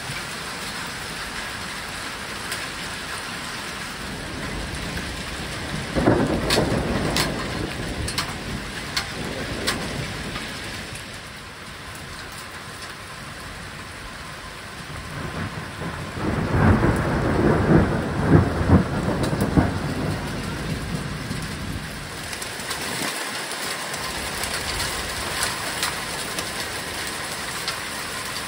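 Heavy rain falling steadily, with single drops tapping close by, and two rolls of thunder: one about six seconds in and a louder one about sixteen seconds in, each lasting a few seconds.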